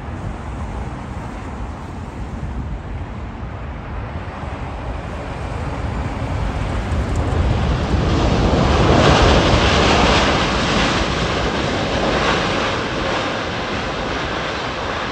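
ZIPAIR Boeing 787 jet airliner on its landing rollout, the engine noise swelling to a peak about nine seconds in and then easing off. Wind buffets the microphone throughout.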